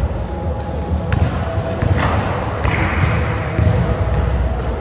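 Basketballs dribbled on a hardwood gym floor, thudding repeatedly, with a few sharper impacts and the running footsteps of players on the court.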